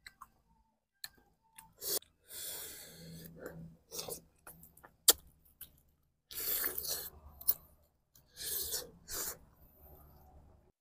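A person eating boiled chicken close to the microphone: pulling the meat apart, biting and chewing in several bursts of a second or so. A sharp click about five seconds in is the loudest sound.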